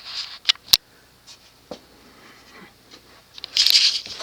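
Handling noise: two sharp clicks within the first second, a quiet stretch, then a loud burst of rustling and scraping near the end.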